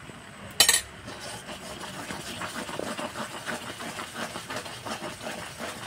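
A spoon or spatula knocks once against a kadai, then stirs and scrapes steadily through milk simmering down into kheer, making a quick, irregular rattle.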